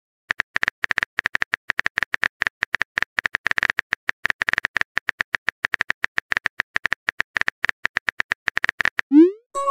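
Rapid, uneven train of short, bright clicks, about eight to ten a second, in the manner of a typing or text-blip sound effect; it stops about nine seconds in.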